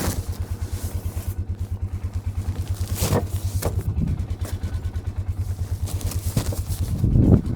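Vehicle engine running steadily at low revs, a regular low throb of about five to six beats a second, with a few knocks and rattles scattered through, the loudest near the end.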